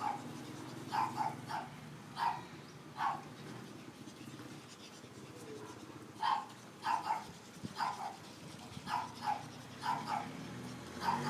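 Pug puppies giving short, high yaps and play barks as they tussle, in quick irregular clusters, with a pause of about three seconds midway.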